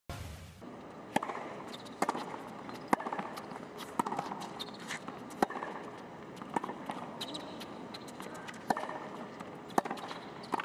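A tennis rally on a hard court: sharp racket-on-ball strikes and ball bounces about once a second.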